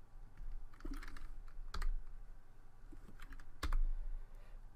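A few scattered clicks of computer keyboard keys, several a second apart, over a low steady hum.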